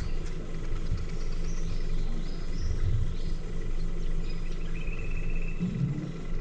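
A boat motor running with a steady low hum and rumble. A few short, high chirps come through above it.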